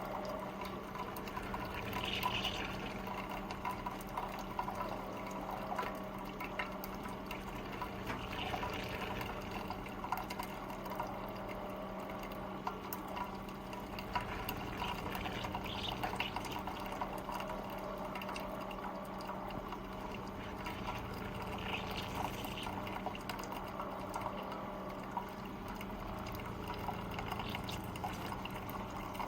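Hamilton Beach FlexBrew Trio coffee maker running: water trickling and gurgling over a steady low hum.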